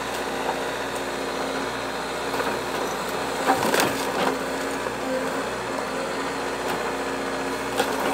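Excavator engine running steadily while the machine breaks into an old wooden building, with wood cracking and splintering. The loudest cracks come a little over three and a half seconds in, and there is another sharp crack near the end.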